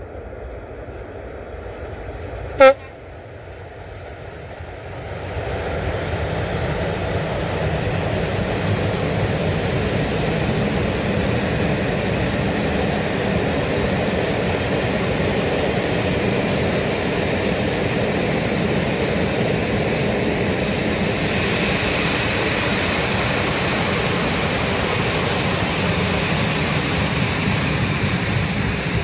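Electric freight locomotive gives one short horn toot, the loudest sound. About five seconds in, the rumble of a long train of freight wagons rolling on the rails swells up and stays steady, with a higher hiss joining about twenty seconds in.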